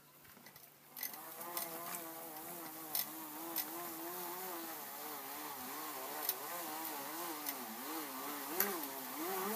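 Small electric motor of a handheld tool buzzing, its pitch wavering up and down as it is pressed into a sponge, with wider swings near the end and a few sharp ticks.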